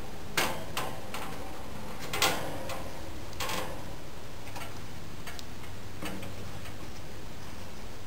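Dominion box fan running with a low hum and a light repeated ticking, its used-up bearings only just freed from seizing. A few sharp metal knocks and rattles, the loudest about half a second and two seconds in, as the wire grill is fitted back on.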